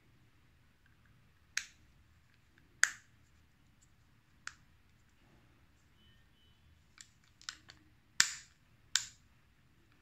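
Sharp plastic clicks and snaps from a handheld hunting bird-caller's casing being handled, about seven at uneven intervals, the loudest about three seconds in and about eight seconds in.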